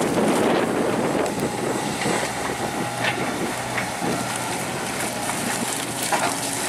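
Heavy diesel machinery running steadily, with wind buffeting the microphone and a few short knocks.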